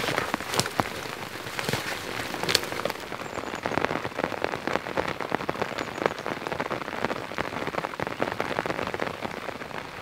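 Heavy rain falling on a tent: a dense, irregular patter of drops that holds steady throughout.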